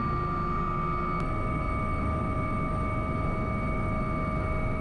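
Cockpit noise of a twin-turbine AW139 helicopter lifting off a platform helideck into a hover: a steady deep rumble with several steady high whines. About a second in there is a faint click and the pitch of the whines shifts.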